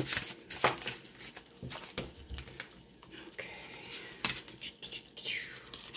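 Tarot cards being shuffled and drawn by hand: scattered light clicks and snaps of card stock.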